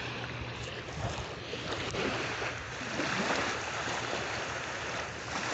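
Ocean surf washing onto a sandy beach: a steady rush of breaking waves that swells a little and eases.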